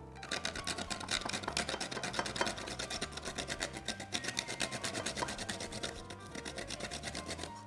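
Whole nutmeg being grated on a small metal pyramid grater: rapid rasping strokes, several a second, with no pause.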